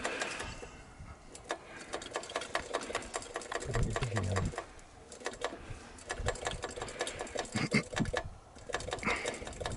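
ChTZ T-170 bulldozer's diesel engine running with a fast, even clatter.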